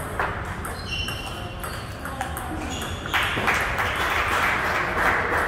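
A few sharp clicks of a table tennis ball on bat and table, with short high pings. From about three seconds in a louder, even rushing noise comes in and dominates.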